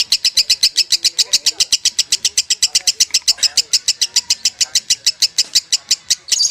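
Lovebird singing a long, unbroken 'ngekek' chatter, the 'konslet' style: about ten sharp, high notes a second, kept up without a pause and stopping right at the end.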